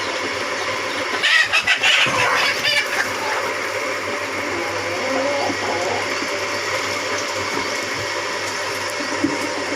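Kadaknath chickens clucking and calling in a short burst about a second in, over a steady background hum.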